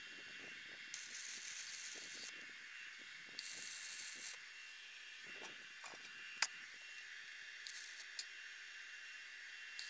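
Stick welder arc crackling and hissing in several short bursts, each a second or two long, as a steel pipe leg is welded to a steel truck wheel. There is a single sharp click about six seconds in.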